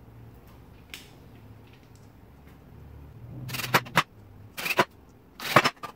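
Cordless drill driving screws into old wooden fence boards. After about three quiet seconds, three short bursts of sharp clacking and knocking follow one another.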